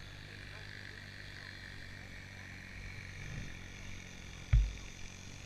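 Distant dirt bike engine buzzing faintly, its pitch drifting up and down as it is ridden, with one sharp wind thump on the helmet-camera microphone a little after four seconds in.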